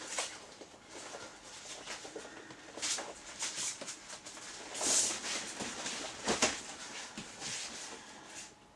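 Heavy PVC apron and rubberised raincoat rustling and crinkling in irregular bursts as the wearer handles and adjusts them; the rustling stops near the end.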